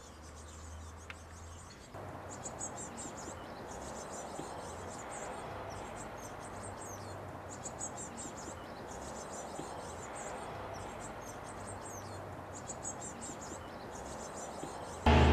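Blue tits calling: short clusters of rapid, very high-pitched chirps, repeated throughout, over a steady low background noise that grows louder about two seconds in.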